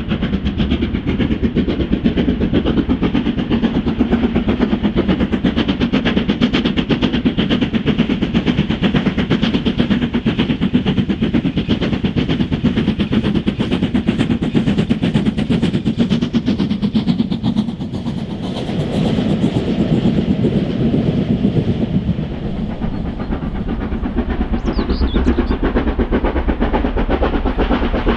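A two-cylinder 4-6-0 steam locomotive working a train, its exhaust beats coming rapidly and without a break over the rumble of the train, easing briefly twice in the second half.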